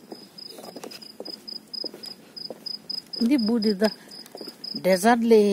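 A cricket chirping in a steady rapid series of short high pulses. A person's voice breaks in briefly twice, about three and five seconds in.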